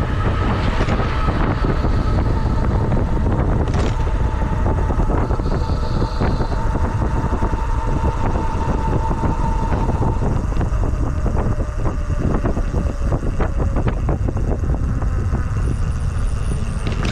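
Riding noise from a RadRunner e-bike in motion: wind buffeting the microphone over tyre rumble on pavement, with frequent small rattling clicks. A steady whine runs through the first ten seconds or so, then stops.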